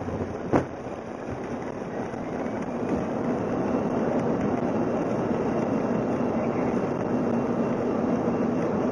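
Boeing 737-400 on its landing rollout: a steady rush of engine and airflow noise from its CFM56 engines, getting louder two to three seconds in and then holding, with one sharp click about half a second in.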